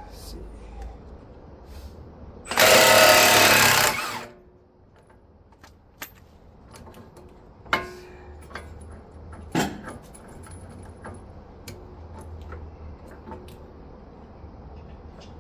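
Impact wrench hammering in one burst of about a second and a half, followed by a few sharp knocks.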